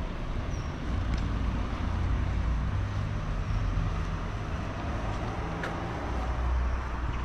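Street traffic: a steady low rumble of cars and other vehicles on the road, with a couple of faint clicks.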